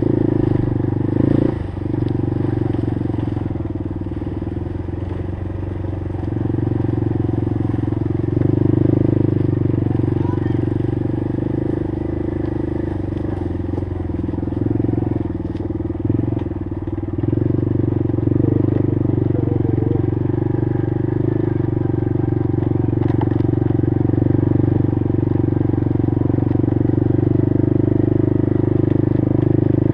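Honda TRX90 ATV's small single-cylinder four-stroke engine running at steady throttle while riding along a trail, with brief dips in the engine note a couple of seconds in and again about halfway through.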